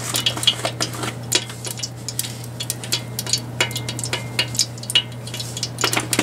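Kitchen cooking noise: rapid, irregular clicks and crackles over a steady low hum.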